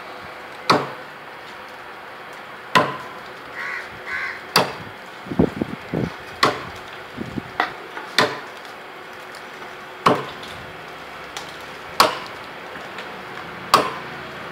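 Chopping blows struck by hand into the trunk of a coconut palm, about eight sharp strikes roughly every two seconds, each with a short ring after it.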